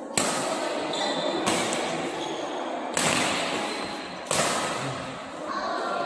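Badminton rackets striking a shuttlecock in a rally, four sharp hits about a second and a half apart, each ringing out in the hall's echo.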